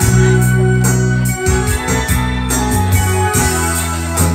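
Electronic keyboard playing an instrumental passage: sustained organ-like chords over a moving bass line with a steady drum beat.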